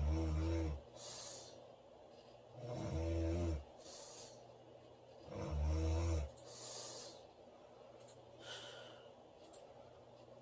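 A woman snoring heavily: three loud, low snores about two and a half seconds apart, each followed by a breathy out-breath. Then come several seconds of quieter breathing with a faint whistle in it.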